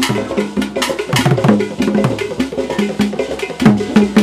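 Percussion music: drums with sharp, regular clicking strikes and a few low drum notes that drop in pitch.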